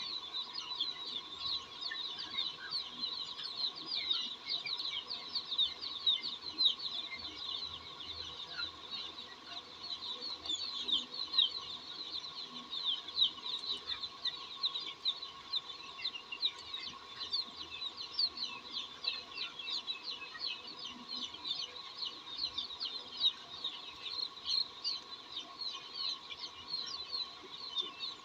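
A large flock of young chickens peeping without pause: a dense chorus of short, high cheeps, with a steady hum underneath.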